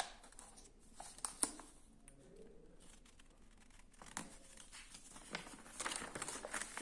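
Paper instruction booklet rustling and crinkling as it is handled, with a few light clicks, then a longer rustle near the end as a page is turned.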